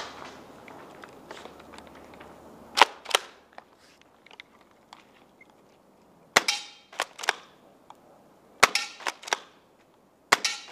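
Airsoft gun firing a string of sharp single shots, loosely in groups of two to four, starting about three seconds in.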